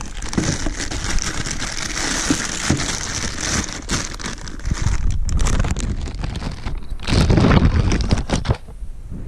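Plastic bag crinkling and rustling as a throttle body is pulled from its wrapping and box, with a louder, deeper handling rustle about seven seconds in.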